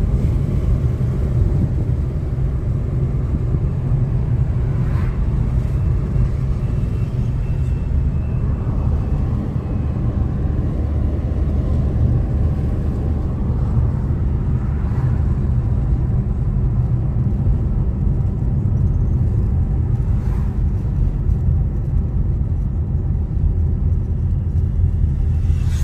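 Steady low road rumble of a car's engine and tyres, heard from inside the moving car.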